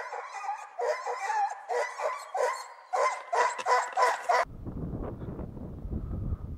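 Hunting dogs barking and baying in a quick run of cries, which cut off suddenly about four seconds in. After that, wind buffets the microphone.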